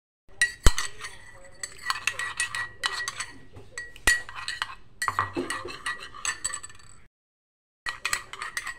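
Metal spoon stirring in a glass measuring cup of marinade, clinking against the glass many times with a bright ringing tone. The loudest knock comes about two thirds of a second in. The sound drops out for under a second near the end.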